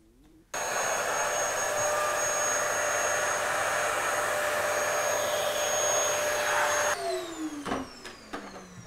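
Vacuum cleaner switched on about half a second in, running steadily with a high whine while its hose clears masonry dust from freshly drilled holes in a block wall. It is switched off about seven seconds in and the motor winds down with a falling whine.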